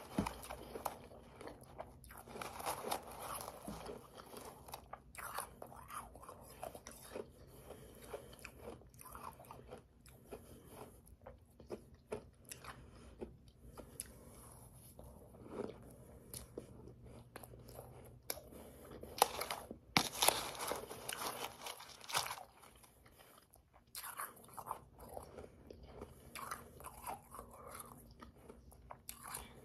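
Close-miked chewing of powdery, slushy ice: soft, irregular crunching as mouthfuls of soft ice are bitten and chewed, growing louder for a few seconds past the middle.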